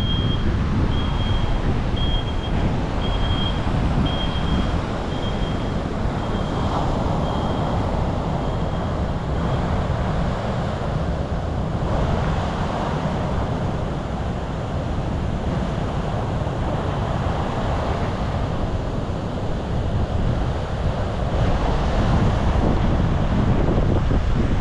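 Wind buffeting the microphone with a steady low rumble over ocean surf breaking on the beach. A short high beep repeats about once a second during the first nine seconds, growing fainter until it stops.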